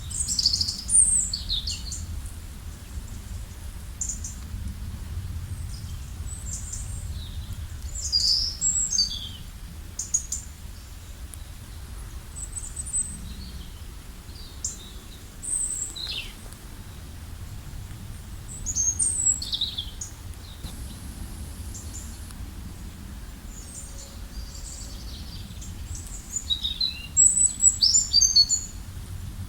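Wild songbirds chirping and trilling in short high phrases, several calling at once. Underneath runs a steady low rumble.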